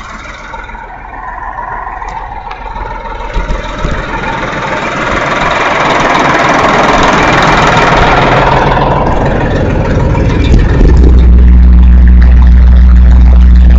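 Big tub hay grinder running, its engine droning steadily. A dense rushing noise swells to a peak about halfway through and eases off, and near the end a loud steady low hum takes over.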